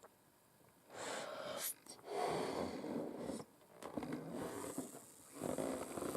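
Long acrylic nails scratching and rubbing over a balloon's rubber skin in several strokes of about a second each, starting about a second in.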